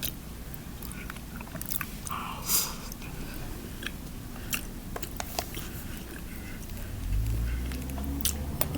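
A person chewing and biting a mouthful of tteokbokki, soft chewy rice cakes and fish cake, with scattered small clicks and one brief louder rustle about two and a half seconds in. A low steady hum comes in about seven seconds in.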